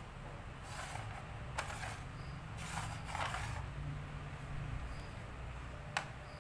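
Xiangqi pieces sliding and scraping across a folding board in a few short rustles, then one sharp click of a piece set down near the end, over a low steady hum.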